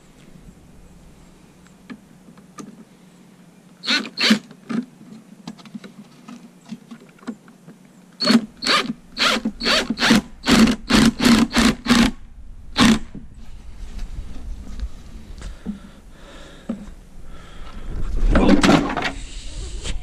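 A tool striking the wood of a plywood swarm trap box: two sharp knocks, then a quick run of about a dozen strikes at two to three a second. Near the end comes a longer, louder clatter with a heavy thud.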